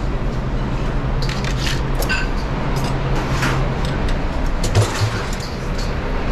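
Steady roar of a busy restaurant kitchen with a low hum that drops out a little past the middle, under scattered metallic clicks of steel tongs and the wood-fired grill's door and grates, and a dull knock near the end.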